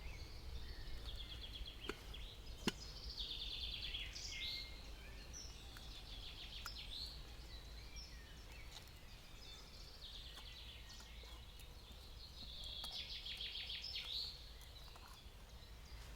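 A songbird singing two rapid trilled phrases, each ending in a falling flourish, over faint forest ambience. A single sharp click comes early in the first phrase.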